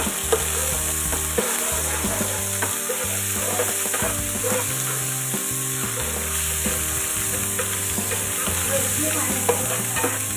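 Food sizzling in hot oil in a wok while a spatula stirs it, with frequent short clicks and scrapes of the spatula against the pan.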